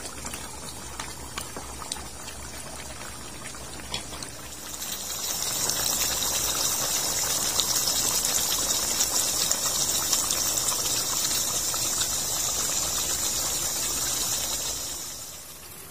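Pork ribs in a thick soy-based sauce simmering in a pan, bubbling with light pops and ticks. About five seconds in, a louder steady sizzling hiss sets in, lasting about ten seconds before fading near the end.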